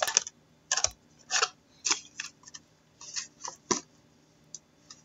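Trading cards being slid and flipped through one at a time: a quick, irregular series of short swishes and clicks.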